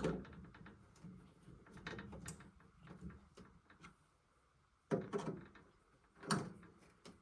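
Faint clicks and rattles of a fire alarm pull station being handled after a pull test, with two louder knocks near the end.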